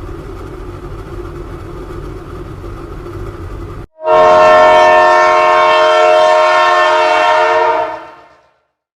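Train running with a steady rumble, then after a sudden cut a loud train horn sounding one long chord of several tones for about four seconds before fading out.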